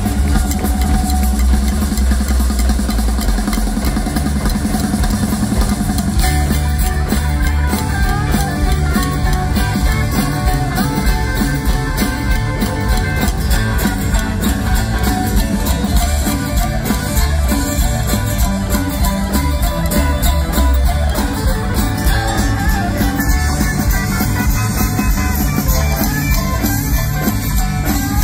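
Live rockabilly band playing: upright bass, electric and acoustic guitars, keyboard and drums. The beat fills out about six seconds in.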